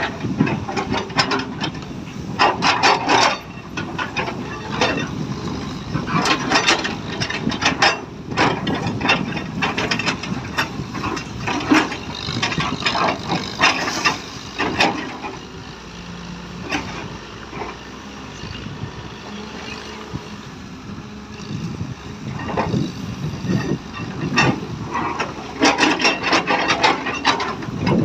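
Excavator at work: its diesel engine runs steadily under irregular clanks, knocks and scrapes from the bucket and material. The clatter is busiest at the start and near the end and eases off in the middle.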